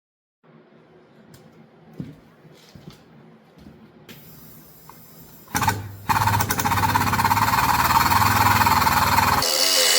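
Faint shop noise with a few light clicks, then a sharp clank about five and a half seconds in. A loud power tool starts just after six seconds and runs with a fast, buzzing rhythm, its sound turning harsher and higher near the end.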